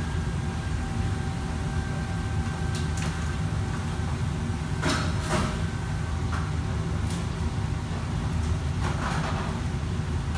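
Steady low rumble of a commercial wok range and its exhaust hood, with a faint steady whine for the first several seconds. A metal ladle scrapes and clatters against a wok every second or two.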